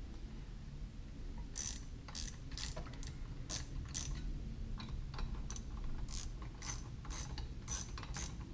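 Hand ratchet clicking in short strokes as it runs the through-bolts into a Minn Kota trolling motor's end cap. The clicks begin about a second and a half in, come about two a second and grow more frequent near the end.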